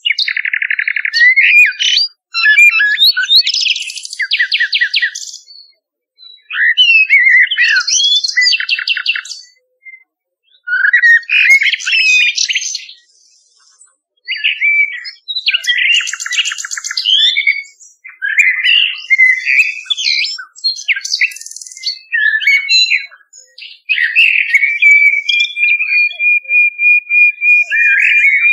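Nightingale song: short phrases of whistles, fast trills and rattles, with brief silences between them. Near the end comes a long run of quick, identical whistled notes at one pitch.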